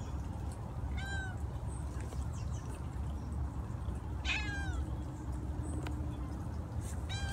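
A domestic cat meowing three times, short calls that each fall in pitch, about a second in, near the middle and again at the end, over a steady low background rumble.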